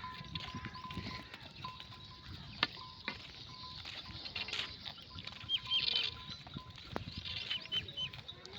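Bells on a grazing flock of sheep clinking irregularly, with scattered sharp clinks over the animals' low rustling. A quick run of high chirps comes twice, about the middle and near the end.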